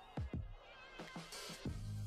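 Electronic background music with a punchy kick-drum beat and hi-hats; a sustained deep bass note comes in near the end.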